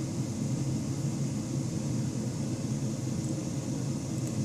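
Steady low background rumble with a soft hiss, unchanging throughout.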